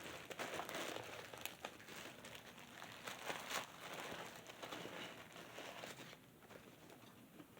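Faint, irregular crinkling of packaging being handled, with small clicks, dying away about six seconds in.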